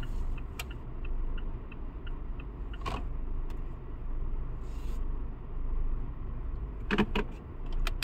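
Car idling, heard from inside the cabin as a steady low rumble. Faint regular ticking runs over it, with a few sharp clicks about three seconds in and again near the end.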